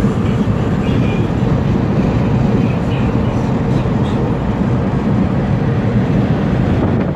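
Steady road and engine rumble heard inside the cabin of a moving vehicle.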